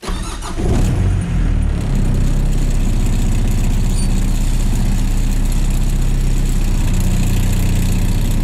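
1995 Mitsubishi Triton MJ's engine idling steadily after coming up over the first second. The owner blames heavy shaking on tension in the transfer-case mount.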